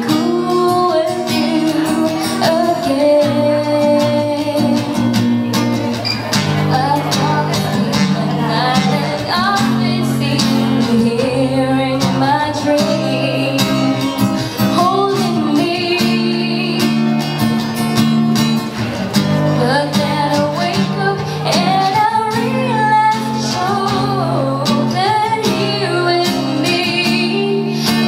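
A woman singing a slow pop ballad into a microphone, accompanied by a fingerpicked and strummed acoustic guitar.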